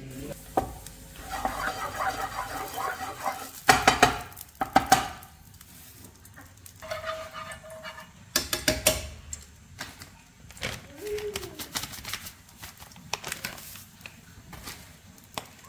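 Clatter of kitchen pots, dishes and utensils: scattered sharp knocks and clinks, loudest about four seconds in and again around eight to nine seconds.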